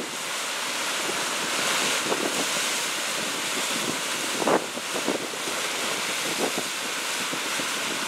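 Ocean surf washing in over rocks and onto sand: a steady rushing wash, with a louder splash about halfway through as a wave breaks against the rocks.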